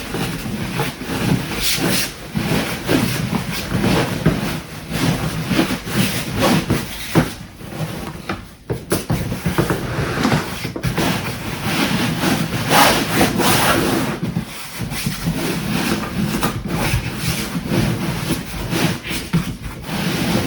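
Self-inflating foam sleeping pad being rolled up tightly by hand, its fabric cover rubbing and scraping in uneven strokes, with brief pauses about halfway through and again a little later.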